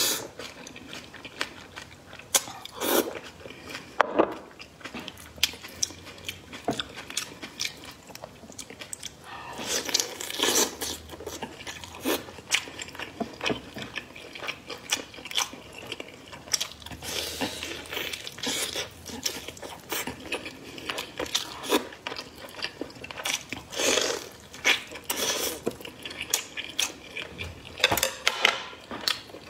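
Close-miked mukbang eating sounds: chewing and biting of noodles and braised meat, with wet mouth smacks and short clicks coming in irregular clusters.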